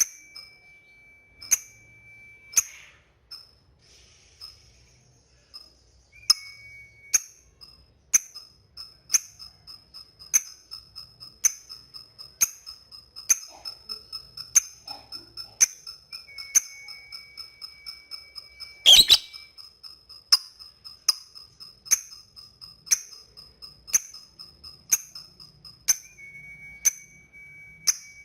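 Lovebird giving sharp, evenly repeated 'ngetik' ticking chirps, about one to two a second, the call used to challenge and provoke other lovebirds. A thin high steady tone runs under the chirps through the middle, and one louder burst stands out about two-thirds through.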